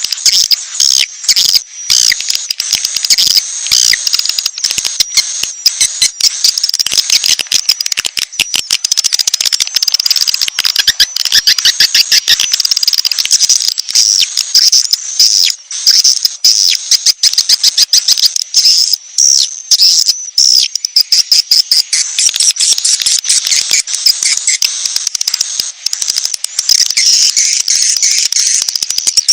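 Bird-lure recording: dense, high-pitched chirping and fast trills of small birds over a rapid insect-like ticking, played loud and continuous. A calling sound meant to draw in wild birds and fledglings.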